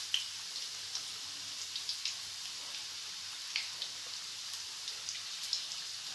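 Samosas deep-frying in hot oil: a steady sizzle with scattered crackling pops.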